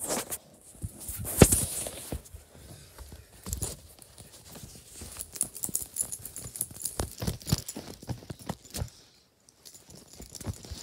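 Handling noise of a plush toy being moved about: irregular taps, knocks and fabric rustling, with one louder thump about a second and a half in and a brief lull near the end.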